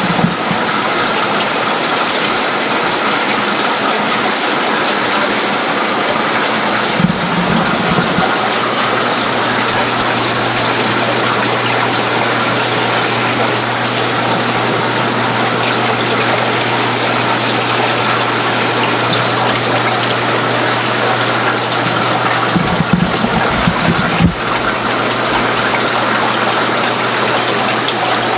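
Steady rush of circulating water from saltwater aquarium filtration, with a constant low pump hum underneath. A few low bumps about seven seconds in and again near the end.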